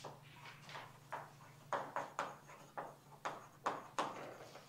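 Chalk writing on a chalkboard: a quick, irregular series of short taps and scratches, about two to three a second, as a line of words is chalked out, over a faint steady low hum.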